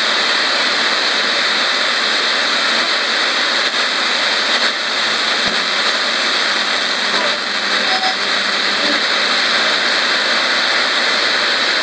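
Radio static: a steady loud hiss as the radio's tuning knob is turned slowly by hand between stations, manual scanning in the way of a ghost box. A few brief, faint tones break through the hiss.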